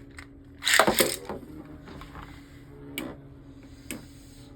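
Two launched Beyblade spinning tops whirring with a steady hum in a plastic stadium, a loud clashing rattle about a second in as they collide, then single sharp clicks near the end as they strike.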